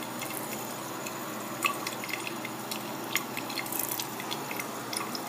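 Water drops dripping: a dozen or so irregular light plinks over a steady hiss.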